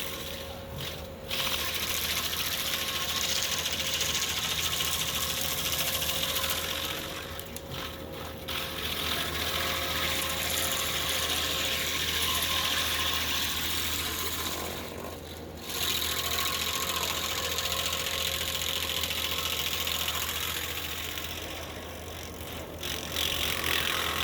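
Skid steer engine driving a Miller stump grinder attachment: a steady grinding noise that briefly drops off four times, about every seven seconds.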